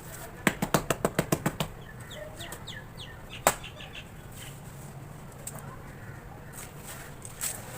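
Tapping on hardened cement cakes: a fast burst of about ten sharp taps about half a second in, then one louder single knock about three and a half seconds in, with a few faint clicks after.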